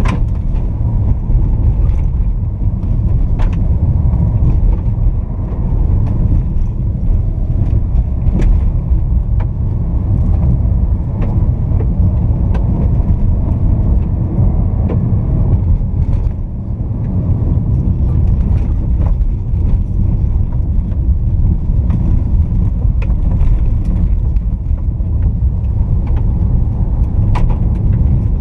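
Inside the cab of a Fiat Toro pickup with its 2.0 turbodiesel four-cylinder, driving on a dirt road at around 55 km/h: a steady low rumble of tyres and engine, with scattered sharp ticks and knocks from the rough surface.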